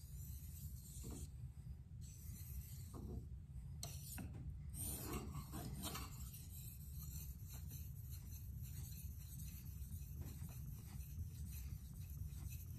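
A steel knife blade scraped in repeated, uneven strokes across a Naniwa Pro whetstone: a scratchy, high-pitched rasp over a steady low hum.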